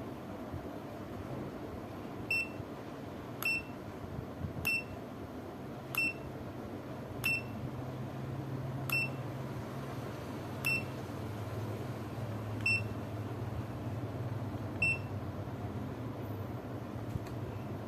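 Aneng 681 digital multimeter giving nine short, high single beeps at uneven intervals of one to two seconds, spaced out more toward the end.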